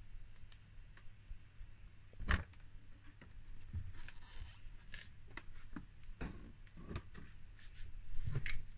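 Light clicks, taps and rubbing from plastic and glass enclosures being handled, with a louder knock about two seconds in and another near the end, over a steady low hum.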